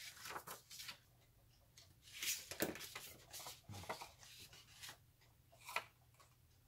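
Paper rustling and sliding as folded envelope blanks are handled, with a single sharper snip near the end as scissors close on the paper.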